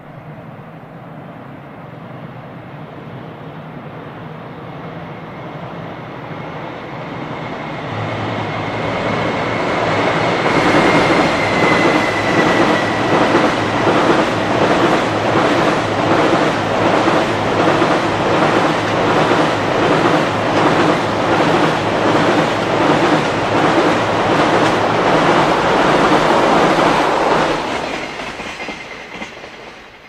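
Electric-locomotive-hauled JR Freight container train crossing a steel girder railway bridge. It grows louder over the first ten seconds as it approaches, then the wagons pass with a steady rhythmic clatter of wheels over rail joints, which fades away near the end.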